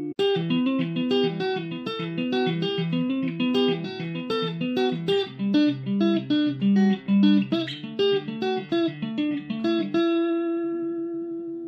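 Stratocaster electric guitar playing a fast single-note riff, many quickly picked notes in a row. About ten seconds in it settles on one held note that rings out.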